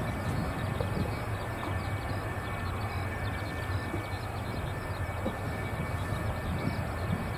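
F-4EJ Phantom's twin J79 turbojets running at low power as the jet taxis: a steady rumble with a thin, steady high whine over it.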